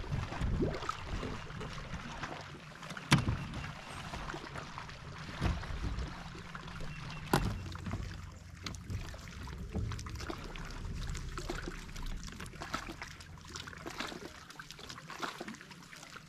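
Water lapping and trickling against a bass boat's hull, with a low steady hum and scattered sharp knocks and clicks from the boat, the loudest about three seconds in and again past seven seconds.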